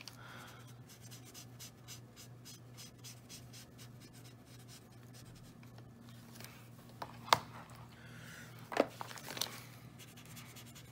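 Felt-tip nib of a Spectrum Noir alcohol marker rubbing over paper in rapid short coloring strokes, with a few louder ticks in the second half. A faint steady low hum sits underneath.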